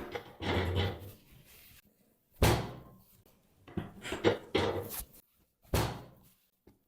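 Thuds and knocks from a chiropractic spinal adjustment on a treatment table: a series of sudden thumps, the two sharpest about two and a half and six seconds in, with a cluster of smaller knocks between them.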